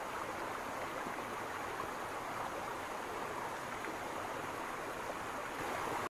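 Stream flowing, a steady, even rush of water.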